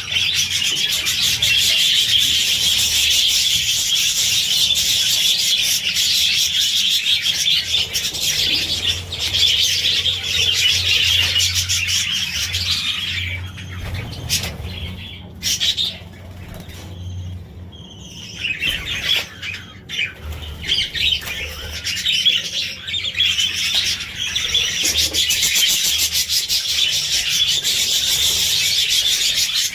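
A flock of budgerigars chattering and warbling together, a dense mass of high twittering calls that thins out about halfway through and then builds back up.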